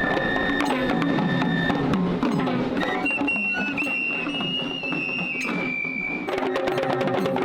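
Traditional drumming with a high piping wind instrument playing long held notes over it. The piping changes note about three seconds in and again later, then stops near the end, leaving the drums alone.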